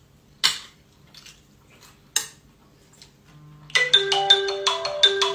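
Cutlery clinking against plates twice, then a melody of short notes starts about two-thirds of the way through.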